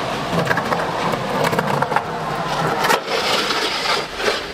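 Skateboard wheels rolling on concrete with a few clacks, then, about three seconds in, the deck scraping along a waxed concrete curb in a backside boardslide.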